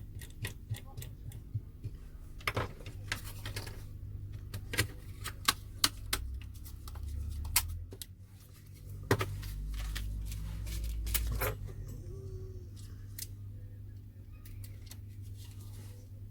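Irregular sharp clicks and taps of small smartphone parts being handled and fitted back in place during reassembly, with a low rumble for a few seconds around the middle.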